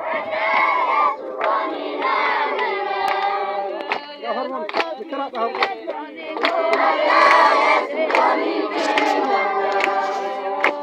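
A group of people singing together, with hand claps running through the song.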